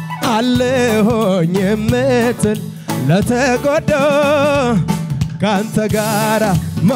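Male gospel singer singing an Amharic worship song into a microphone, his long held notes wavering with heavy vibrato, over live electronic keyboard accompaniment.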